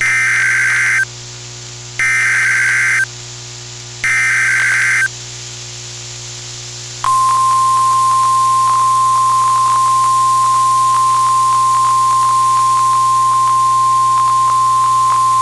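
Emergency Alert System SAME data header: three one-second bursts of warbling two-pitch data tones, a second apart. After a pause of about two seconds comes the NOAA Weather Radio 1050 Hz warning alarm, a single steady tone beginning about seven seconds in, here announcing a tornado warning.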